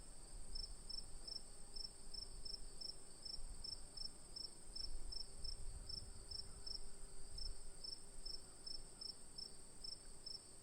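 Crickets chirping: one steady, high continuous trill with a lower chirp repeating evenly about twice a second, over a faint low rumble.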